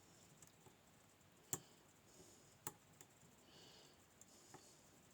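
Faint clicks and light scratching of lock picks working inside a Nemef NF2 lock: a few separate sharp clicks, the loudest about one and a half seconds in, with soft scraping between them.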